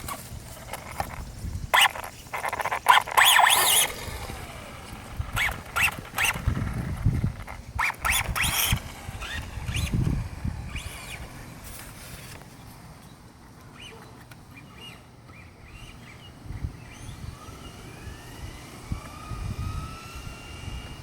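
Traxxas Slash 4x4 radio-controlled truck driving in short bursts, its electric motor and drivetrain whirring, with a rising whine near the end as it speeds up. The truck makes an odd noise that its owner can't explain, and its gears seem slow to engage.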